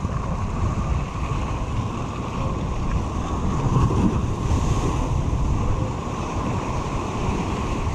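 Surf breaking and washing over the rocks of a jetty, with wind buffeting the microphone. It is a steady rush that swells loudest about halfway through.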